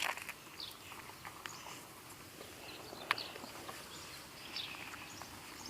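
Quiet rural outdoor ambience with scattered short, high bird chirps and a sharp click about three seconds in.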